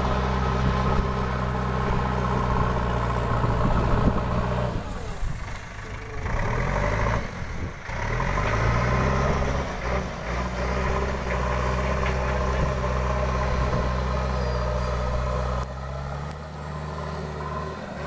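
JCB 3DX backhoe loader's diesel engine working under load while levelling soil with the front bucket. The engine speed sags and climbs back about five to eight seconds in, then drops to a lower, quieter note near the end.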